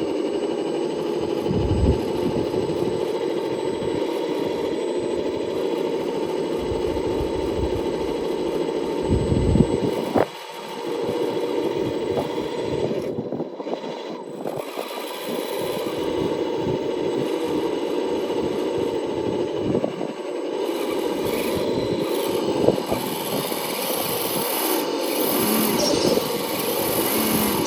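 RC rock crawler driving, its small electric motor and gear drive whining steadily, with scraping from the tyres and chassis over the terrain; the sound dips briefly about a third of the way in.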